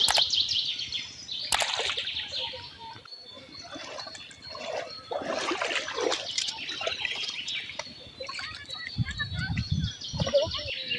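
Water sloshing and splashing as two people wade and drive a bamboo-framed push net through floating water hyacinth, with birds chirping throughout. A few dull knocks come near the end.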